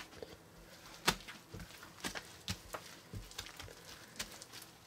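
A hand kneading and pressing a large mound of mixed slime and floam packed with tiny foam beads: soft squishes and irregular crackling pops, the sharpest about a second in.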